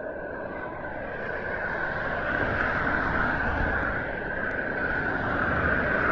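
Traffic on a wet main road, cars passing one after another with tyre noise on the wet surface, swelling about two to three seconds in and again near the end.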